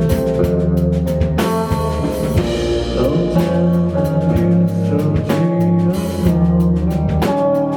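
Indie band playing live, with a drum kit keeping a steady beat under held pitched instrument notes.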